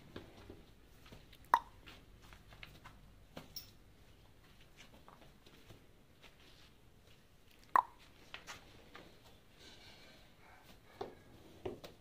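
Quiet shed ambience broken by a few short, sharp knocks: two loud ones, about a second and a half in and near eight seconds in, and two softer ones near the end.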